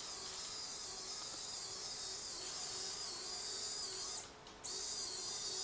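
Small electric winch motor on a scale RC tow truck reeling its cable back in: a high, wavering whine that cuts out briefly about four seconds in.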